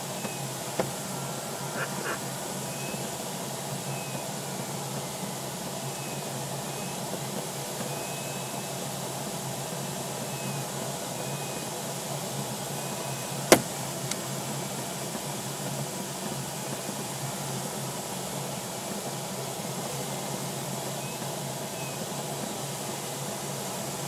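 Steady rush of airflow in the cockpit of a DG-505 two-seat glider in flight. A single sharp click about halfway through, with two fainter ticks near the start.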